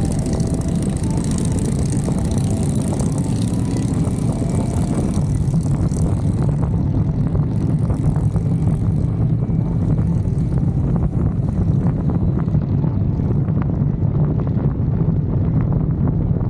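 Motorcycle engines rumbling steadily during a group ride, with wind buffeting the microphone.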